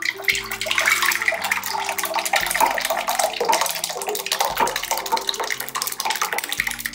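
Runny pumpkin-oatmeal mixture of water, milk and oats pouring from a glass mixing bowl into a slow cooker's crock. It makes a continuous, splashy pour, like water running into a basin.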